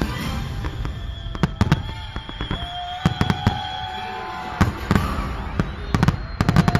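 Aerial fireworks shells bursting: sharp bangs in irregular clusters over a low rumble, with a rapid run of several bangs near the end.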